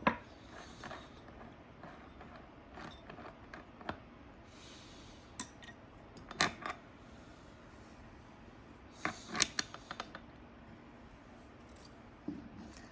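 An angle grinder and its parts being handled with a spanner wrench: scattered clicks, taps and clinks of metal and hard plastic, with a couple of brief scraping rustles.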